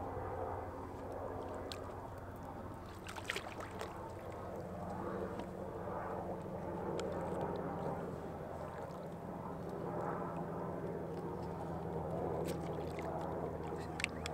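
Shallow water sloshing and lapping against a rocky bank as a blue catfish is held in it for release, over a steady low hum, with a few light clicks.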